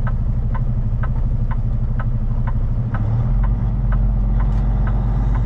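Kenworth T880 heavy truck's Cummins diesel engine running at low speed, with the turn-signal relay ticking about twice a second for the first three seconds. About three seconds in, the engine's low hum grows heavier.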